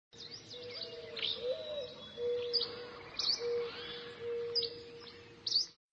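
Birds chirping: short, sharp high calls every half second or so over a lower, steady whistling tone that comes and goes. It all cuts off suddenly near the end.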